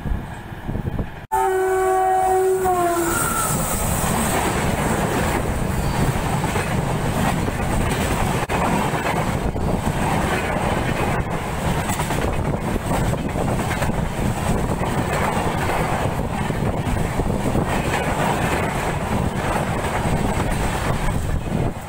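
Indian Railways express train (the 15548 Jaynagar Antyodaya Express) running through a station without stopping: the locomotive horn blows for about two seconds, dipping in pitch at its end, then the coaches rush past with a steady loud clatter of wheels on rail.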